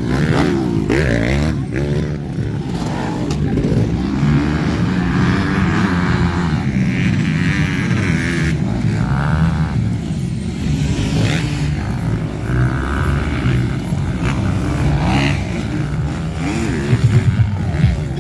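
Motocross dirt bike engines racing on a dirt track, several bikes revving up and down over and over with overlapping rising and falling pitch.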